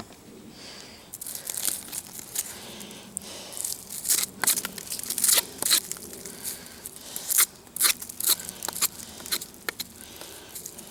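Victorinox Trekker Swiss Army knife tool working into wood: irregular scraping and crackling strokes, thickest through the middle of the stretch.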